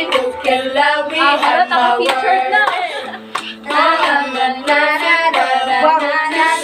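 Music: a song with one singer's sustained, wavering vocal over accompaniment.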